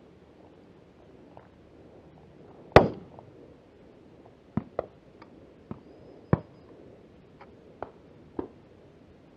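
A loud shotgun shot about three seconds in, followed by a string of about seven fainter, sharp shotgun shots over the next six seconds, some close together and one louder about six seconds in.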